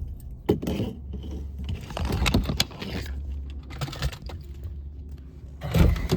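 Car engine idling with a steady low rumble, under scattered clicks and rattles like jangling keys. A louder knock comes near the end.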